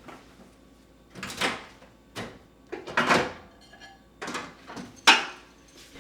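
Household handling sounds: a series of about five short knocks and sliding scrapes, roughly a second apart.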